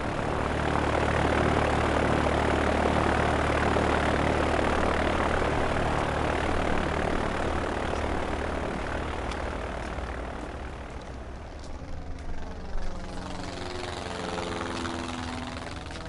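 A propeller aircraft flying past, loudest in the first few seconds and then slowly fading as it goes away. A few soft knocks come near the end.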